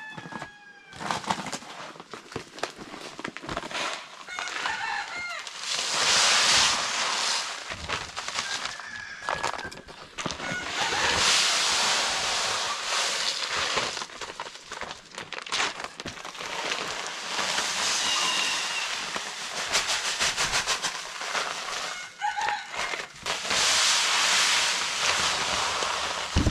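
Chickens calling and clucking, with a rooster crowing, and several louder noisy stretches of a second or two.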